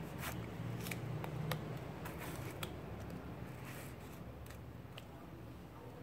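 A knife cutting a tomato held over a clay mortar, the wedges dropping in: a scatter of soft, irregular clicks and snicks, over a low steady hum.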